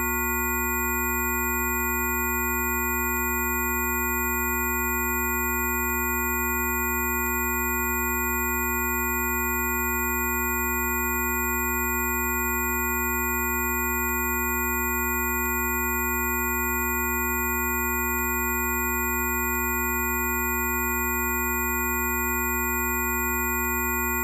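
A steady chord of electronic pure tones, several held pitches from a low hum up to a high whine, sounding together without change. A faint tick comes about every one and a half seconds.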